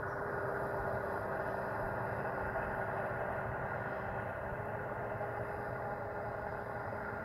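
Electric motor of a Traxxas M41 Widebody RC catamaran running at speed on the water, a steady hum with a few steady tones over a rushing noise.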